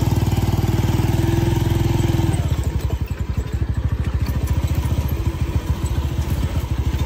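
Small motorcycle engine running as the bike rides along, a fast steady run of firing pulses that eases off slightly after about two seconds.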